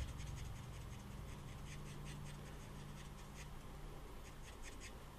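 Stampin' Blends alcohol marker scratching faintly over designer paper in many short colouring strokes.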